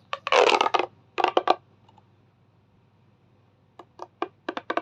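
Plastic pop tube fidget toy being stretched and squeezed, its ridged sections snapping with sharp clicks: a dense crackle at the start, a few clicks about a second in, then a run of single clicks near the end.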